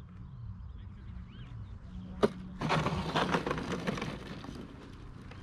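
A sharp knock, then about two seconds of scraping and rustling, over a steady low hum.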